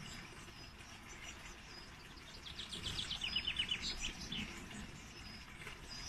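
Garden songbirds calling, with short high chirps repeating throughout. About halfway through comes a fast trill of a dozen or so falling notes, the loudest sound.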